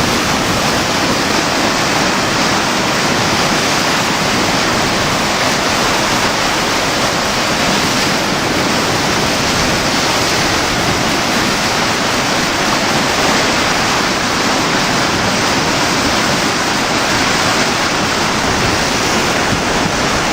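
Flooded Maumee River rushing: a steady, loud roar of fast, turbulent floodwater.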